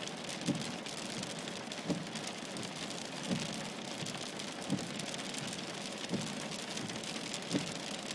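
Rain mixed with hail hissing and pattering on the car's roof and windscreen, heard from inside the car. A short low thud from the sweeping windscreen wipers comes evenly about every second and a half.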